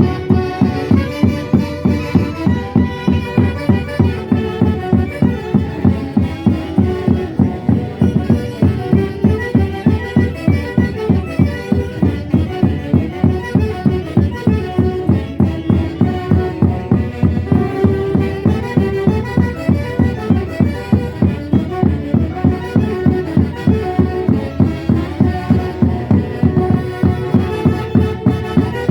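A live orchestra playing traditional Andean dance music with a steady beat, about three beats a second.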